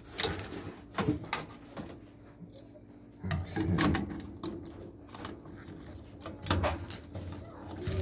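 Scattered sharp clicks and metal taps from needle-nose pliers and rubber-gloved hands working on a gas furnace's gas valve and burner fittings, with a few short, low muffled sounds in between.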